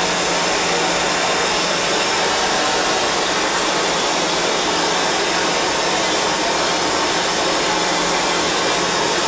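A blower-type tool running steadily: a loud, even rushing-air noise with a faint low hum underneath, unbroken throughout.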